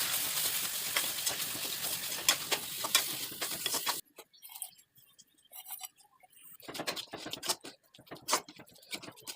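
Chicken frying in hot oil: a steady sizzle with scattered pops and crackles that cuts off abruptly about four seconds in. After a quiet stretch, crackling starts again near the end.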